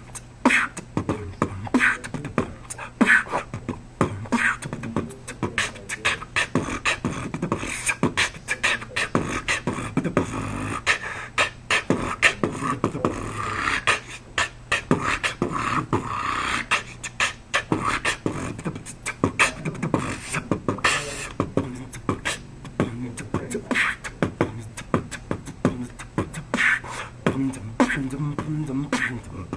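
A man beatboxing: a rhythmic run of mouth-made drum sounds, several sharp clicks and snaps a second, with held vocal tones mixed in around the middle.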